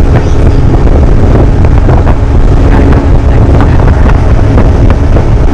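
Loud wind buffeting the microphone of a motorboat moving at speed across the lake, over the steady running of the boat's motor.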